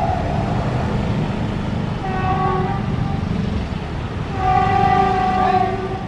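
Cars and motorcycles crossing a railway level crossing, engines running in a steady rumble. A horn sounds twice: briefly about two seconds in, then for about a second and a half, louder, near the end.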